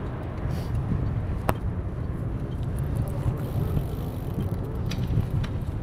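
City street traffic heard from a moving bicycle as a steady low rumble, with one sharp click about a second and a half in.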